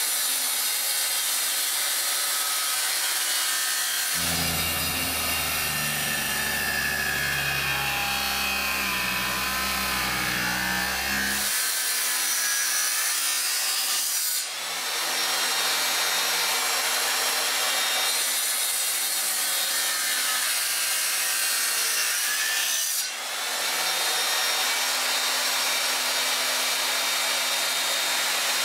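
Power tool cutting or sanding wood, a steady dense rasping noise over a low machine hum. The sound changes abruptly about 4, 11, 14 and 23 seconds in, as from separate edited passes.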